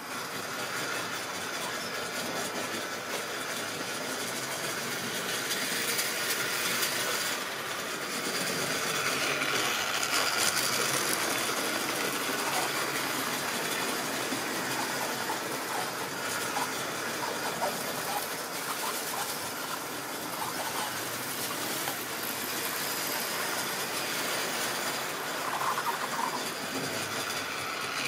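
Tri-ang OO-gauge model trains running past on the layout track: a steady running noise from the coach wheels on the rails, with many small clicks.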